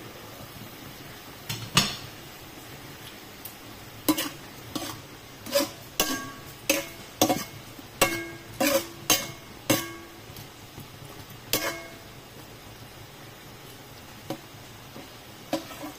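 Stainless steel ladle clinking and scraping against a stainless steel wok while stirring sautéed bitter melon and shrimp: about a dozen ringing metal knocks between about four and twelve seconds in, over a faint steady hiss. A single sharp knock comes about two seconds in.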